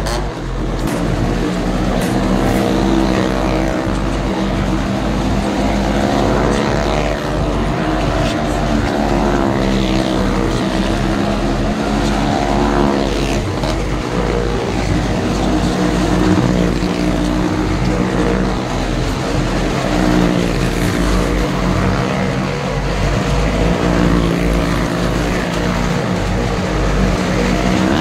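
Loud, steady fairground din: a droning motor under a deep, even beat about twice a second from loudspeaker music.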